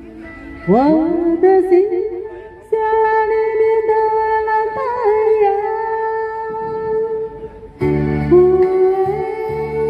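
A woman singing a slow Chinese song into a handheld microphone over a karaoke backing track, with long held notes and sliding swoops about a second in. A fuller accompaniment with bass comes in near the end.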